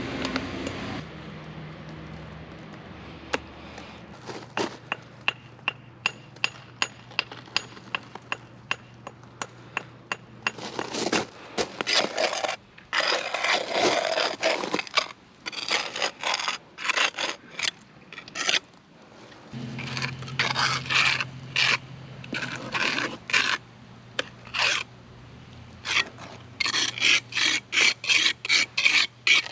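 Steel trowel scraping and spreading mortar on the back of a stone veneer panel, first in many quick short strokes, then in longer scraping passes.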